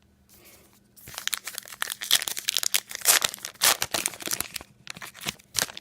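A foil wrapper of a baseball card pack being torn open and crinkled by hand, a dense crackling rustle that starts about a second in and stops just before the end.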